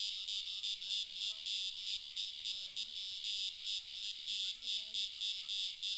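Chorus of insects, crickets or similar, calling in a high-pitched, pulsing trill that beats about four to five times a second without a break.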